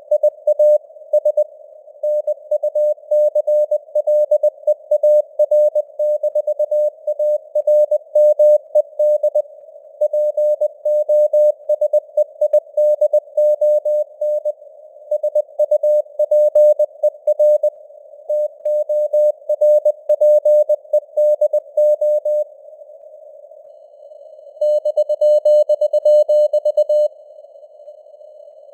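Morse code (CW) sent at 20 words per minute: a steady mid-pitched beeping tone keyed on and off in dots and dashes, over a faint hiss of simulated radio noise with varying signal strength. The keying pauses for about two seconds near the end.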